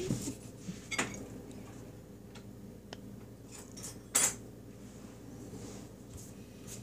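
Metal knife and fork clinking against a plate: a sharp clink about a second in and a louder one about four seconds in, with a few light taps between.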